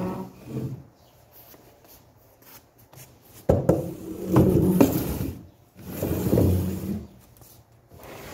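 Grey wicker armchair dragged across a tiled floor, its legs scraping and grinding in two long pushes, the first starting sharply about three and a half seconds in and the second about a second later, with a shorter scrape at the very start.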